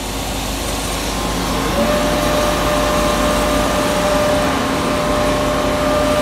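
Hem Saw vertical bandsaw running, a steady machine hum that grows louder, with a steady whine coming in about a second in and a lower one just after.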